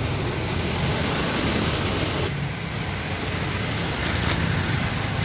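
Steady rushing background noise with a low hum, and clear plastic packaging rustled by hand about four seconds in.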